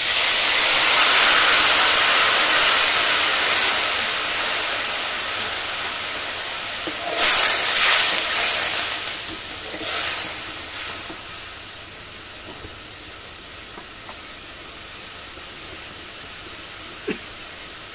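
Water poured into a kadai of hot oil and fried spices hits with a sudden loud hiss and sizzle and gives off steam. The hiss slowly dies down to a quieter steady sizzle over the next dozen seconds, flaring up again briefly when a ladle stirs it about seven and ten seconds in.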